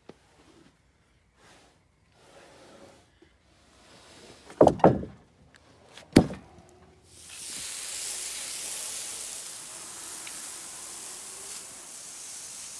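Fresh-sawn incense cedar boards sliding and knocking together as they are handled, with two loud wooden knocks about five and six seconds in. From about seven seconds a steady hiss of water spray wetting a cedar slab.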